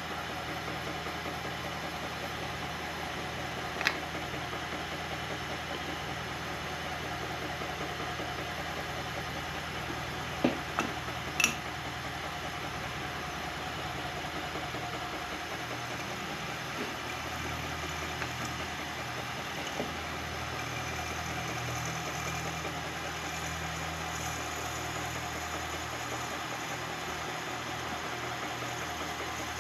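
Milling machine running steadily, its motor humming with a low pulsing beat. There is a sharp click about four seconds in and three more around ten to twelve seconds in.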